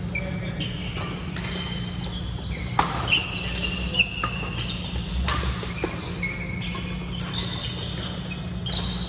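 Badminton rally: shuttlecocks struck by rackets with sharp cracks, the loudest a little under three and four seconds in, and sports shoes squeaking shrilly on the court mats, over a steady low hum.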